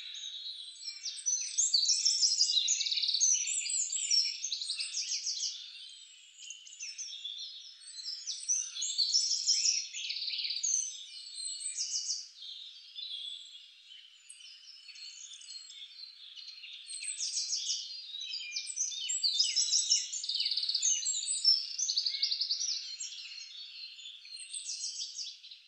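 Birds chirping and singing: a dense chorus of short chirps and fast trills, all high-pitched, that swells and fades every few seconds.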